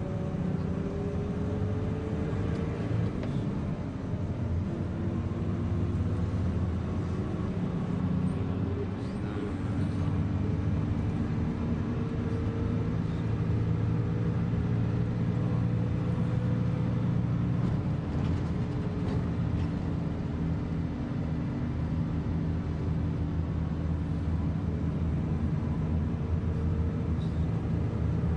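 Bus engine and road noise heard from inside the passenger cabin while driving: a steady low rumble, with the engine's pitch slowly drifting up and down.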